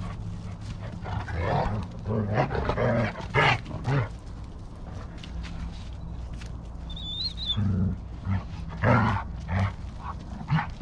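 A young she-wolf and a dog play-fighting, with short bouts of growls and yelps about one to four seconds in and again about eight to nine seconds in. A brief high whine comes around seven seconds in.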